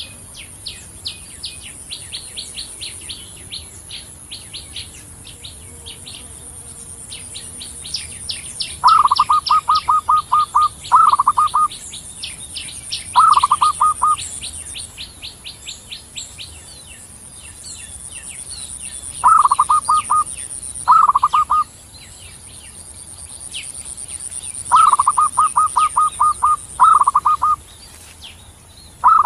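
Zebra dove (perkutut) cooing in short phrases of rapid staccato notes, about seven phrases starting roughly a third of the way in. Many quick, high small-bird chirps run throughout, with a thin, very high insect-like trill that comes and goes.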